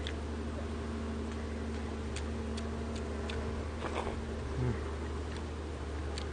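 A person eating: a string of small, sharp chewing and lip-smacking clicks at irregular intervals, over a steady low hum.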